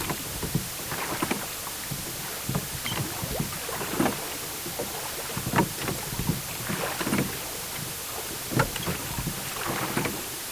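Water lapping in small, irregular slaps and splashes, about one or two a second, over a steady hiss, like small waves against a boat hull or the shore of a lake or sea.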